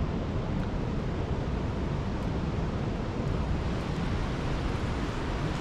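Steady rushing of river water, an even, unbroken wash of noise.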